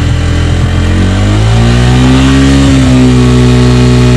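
Bajaj Pulsar N150's single-cylinder engine revving with the bike standing. The pitch climbs about a second in and is held high, at around 7000–8000 rpm.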